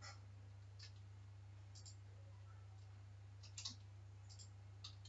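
Faint, scattered clicks of a computer mouse and keyboard keys, about seven in all, one of them a quick double click, over a steady low hum.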